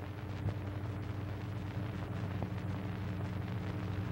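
Steady low hum and hiss of an old 1930s film soundtrack, with a couple of faint clicks.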